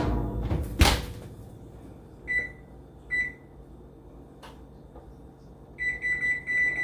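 Two knocks of the oven door being shut, then the beeps of an oven's electronic control panel as a cooking timer is keyed in: two single beeps, then a quick run of beeps near the end.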